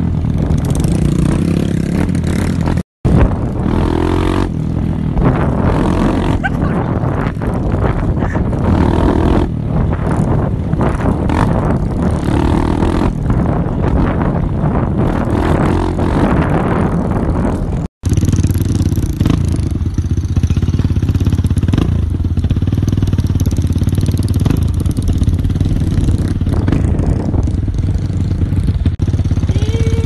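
Small motorcycle engines running as the bikes ride over a rough dirt road, a steady engine hum under rough road and air noise. The sound cuts out for an instant twice, about 3 and 18 seconds in.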